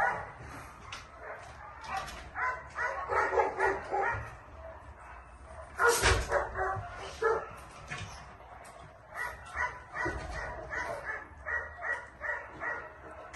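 Dogs barking and yapping in quick runs of short barks, about three or four a second, with a brief louder noise about six seconds in.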